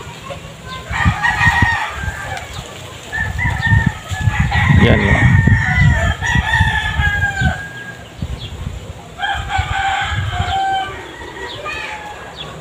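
Roosters crowing, several calls one after another, with long held notes in the middle, over a low rumbling noise.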